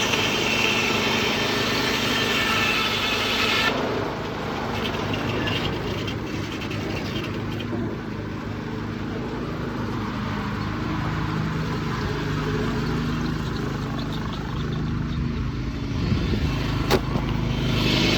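Sawmill machinery running, its Detroit 6-71 diesel engine droning steadily, muffled from inside a pocket. A higher whine over it cuts off about four seconds in and comes back near the end, and there is one sharp knock shortly before that.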